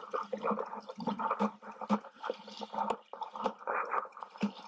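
Shiny wrapping of a toy blind box crinkling and crackling as it is worked open by hand: a steady stream of small irregular crackles.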